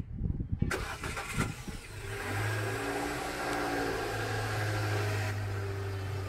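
A car engine starting about two seconds in, its pitch dipping briefly and then settling into a steady idle.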